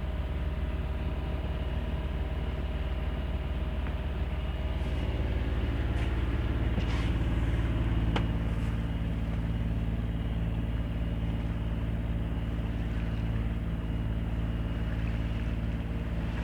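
A sailing yacht's engine running steadily while the boat motors along. There are a couple of faint light knocks about halfway through.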